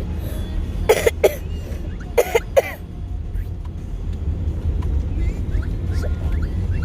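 A person coughing in two quick fits of about three harsh coughs each, the second fit about a second after the first. It is a persistent cough that the person says he can't stop.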